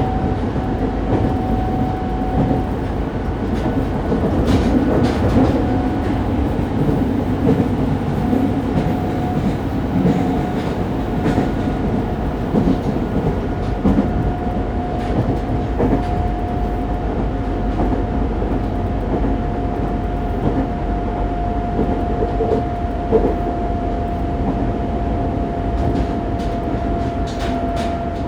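Fukuoka City Subway 2000 series train with Hitachi GTO-VVVF traction, heard inside the car while running between stations. A steady rumble of wheels on rail, occasional rail-joint clicks, and a steady whine that drifts slightly lower.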